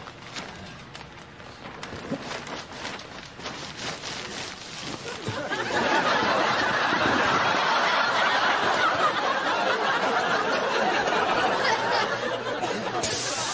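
Crinkly rustling of a black plastic bin bag being rummaged through. About five seconds in, studio audience laughter swells up and keeps going.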